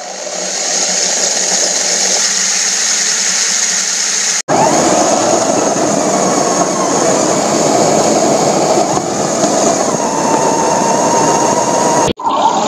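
Henglong 1/16 Type 99 RC tank's Tamiya 540 electric motors and gearboxes running at speed with the tracks, a steady high whine over a dense mechanical whirr. About four and a half seconds in the sound cuts and comes back louder and fuller as the tank drives over grass, and it breaks off briefly near the end.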